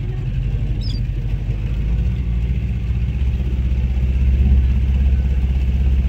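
A motorboat engine running steadily with a low drone, growing a little louder over the last few seconds.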